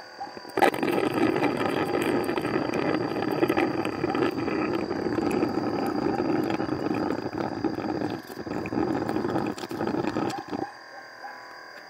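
Honey being sucked out of Heterotrigona itama stingless-bee honey pots through a suction tube: a continuous slurping, gurgling rush of honey and air with many small crackles. It starts abruptly about half a second in and cuts off near the end.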